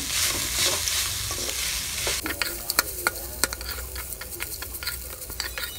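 Metal spatula stirring and scraping garlic rice in a hot metal pan, with the oil sizzling under it. About two seconds in, the sizzle dies down and sharp clicks of the spatula striking the pan stand out.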